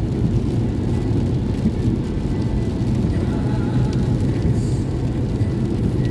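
Steady low rumble of a car driving on a rain-soaked freeway, heard from inside the cabin: wet tyre and road noise.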